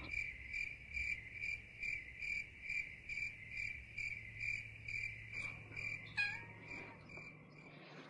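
Cricket chirping steadily, about three short chirps a second, with a brief falling tone about six seconds in.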